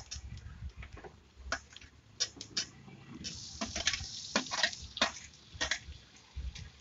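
Chopped tomato scraped from a steel bowl into a kadai of frying onions with a metal spatula: a run of sharp metal-on-metal scrapes and clinks, with a short sizzle about three seconds in as the tomato hits the hot oil.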